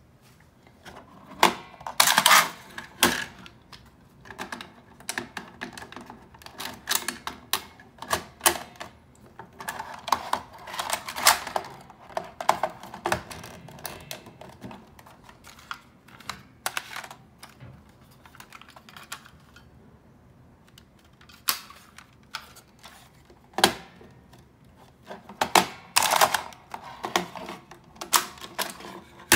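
Clicks and clatter of hard plastic as a JVC C-P6U II manual VHS-C cassette adapter is handled and a VHS-C tape is pressed into it. The sharp clicks come in irregular clusters with short quiet gaps between them.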